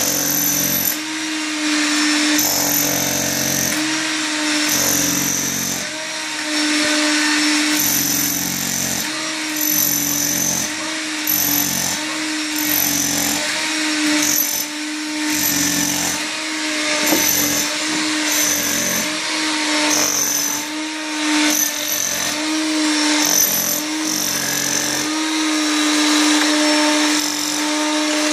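Corded electric demolition hammer chiselling through ceramic floor tiles and the concrete beneath, hammering in repeated bursts of one to two seconds with brief pauses between.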